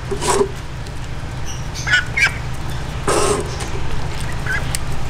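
A young duck giving a few short squawks while being held and handled, over a steady low hum.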